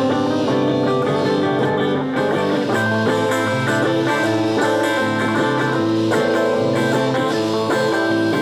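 Background music: looped electric guitar playing overlapping plucked notes in a bluesy style.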